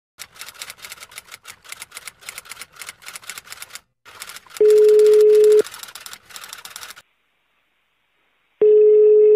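Rapid typing clicks for the first few seconds, then a telephone ringback tone: two steady one-second beeps about four seconds apart as an outgoing call rings.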